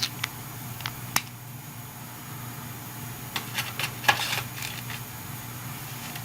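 Small plastic stamps and their packaging being handled: sharp little clicks and taps, a few in the first second and a quick rattling cluster about three to four seconds in, over a steady low hum.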